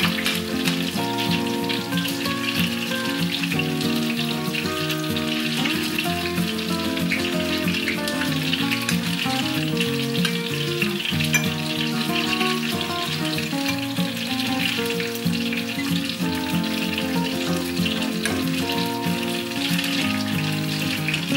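Background music of held chords that change about once a second, over a steady high hiss.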